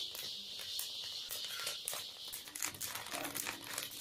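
Sorghum (jowar) grains popping in a hot iron kadai under a cloth: an irregular crackle of small sharp pops, with the cloth and stirring stick rustling as the grains are stirred.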